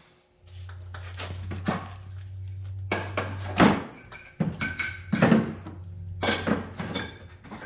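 Steel adapter cups and collars of a ball joint press kit clinking and clunking together as they are rummaged through in their case, several of the knocks ringing briefly, over a steady low hum.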